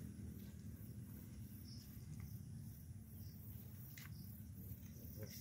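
Quiet outdoor background: a steady low rumble with a few faint high chirps, and faint clicks about four seconds in and near the end.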